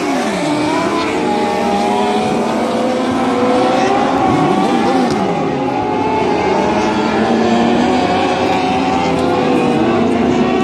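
Dwarf race cars' motorcycle-based engines running together around the dirt oval. Several engine notes overlap, each rising and falling in pitch as the cars pass and accelerate out of the turns.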